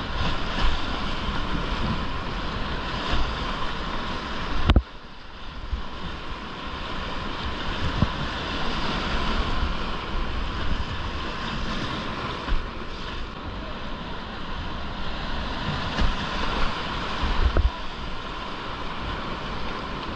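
Whitewater rapids rushing and splashing close around a kayak, with wind buffeting the GoPro's microphone. A sharp knock about five seconds in, after which the sound turns suddenly duller and quieter before building back up.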